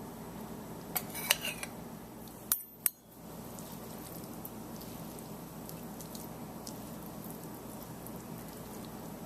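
A few light clinks of a metal utensil against a dish in the first three seconds, then a steady faint hiss with occasional soft ticks.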